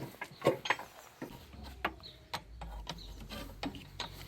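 Metal hand tools clicking and clinking irregularly on the top nut of a Citroen C4's front strut mount as it is undone. A low rumble runs underneath from about a second and a half in.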